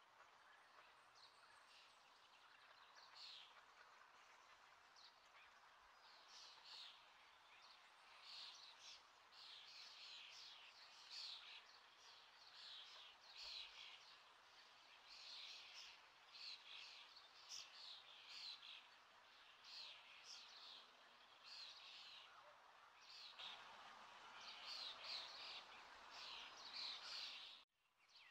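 Faint chirping of small birds, many short irregular chirps over a low hum of distant background noise. The sound cuts out for a moment near the end.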